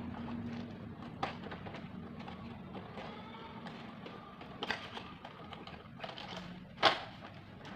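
Large hard-plastic toy building blocks knocking against each other and the styrofoam tray as a kitten bites and paws at one. There are a few separate sharp knocks, the loudest near the end.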